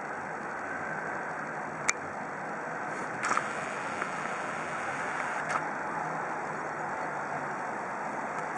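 Steady road traffic noise as a police van drives along the street, with no siren. A few sharp clicks cut through it, the loudest about two seconds in, with others a little after three seconds and at about five and a half seconds.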